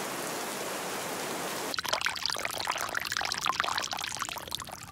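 Steady hiss of water drops falling on leaves. About two seconds in, it gives way to a louder, uneven splashing and trickling as a stream of water is poured from above onto grass and stones to fake rain.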